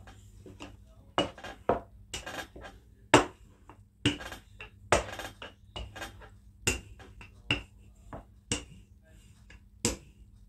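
Wooden rolling pin knocking and rolling on a wooden board as dough is rolled out: irregular sharp knocks about once a second, some followed by a short rolling rub.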